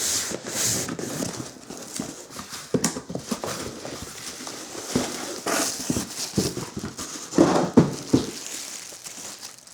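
Packaging being handled and torn open to unpack a motorcycle tall seat: irregular rustling, scraping and knocks, with a few louder strokes between seven and eight seconds in.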